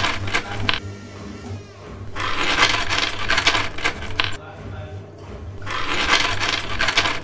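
Wrench turning the axle nut of a carpet polisher's transport wheel as it is tightened back on: three spells of about two seconds each of rapid metallic clicking and rattling, over a low steady hum.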